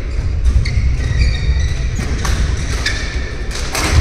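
Badminton rally: sharp racket strikes on the shuttlecock about a second and a half apart, the loudest near the end, with short shoe squeaks on the court floor, over a steady rumble of the hall.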